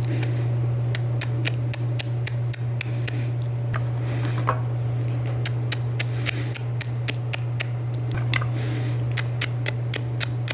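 Irregular sharp clicks and taps from small hard objects being handled, dozens of them, over a steady low hum.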